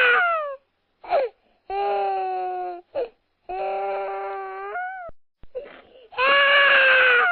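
Crying in long, drawn-out wails, each about a second or more and falling slightly in pitch at its end, broken by short gasping breaths between cries.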